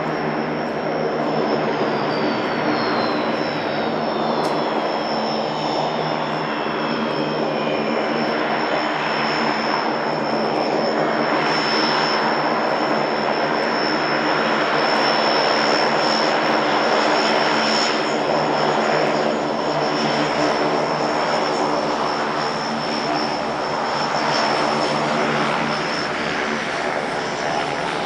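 Antonov An-24RV's twin turboprop engines running steadily: a dense propeller drone with a high, steady turbine whine above it. A fainter whine glides down in pitch over the first several seconds.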